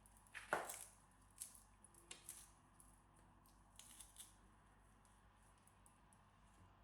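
Garlic cloves being crushed in a garlic press: a few short, faint squeaks and scrapes of the press, spread over the first four seconds or so.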